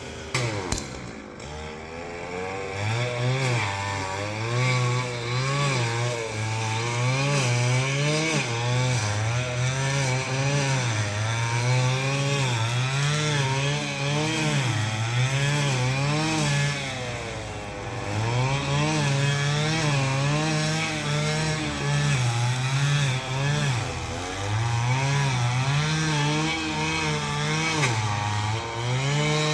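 A small handheld two-stroke power tool runs at high revs under load, its pitch rising and falling every second or two as it bites into and clears vegetation. It drops briefly near the start and once or twice more along the way.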